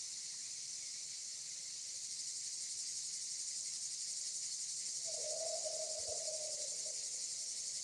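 Steady high-pitched drone of an insect chorus, with a short low tone a little after five seconds in.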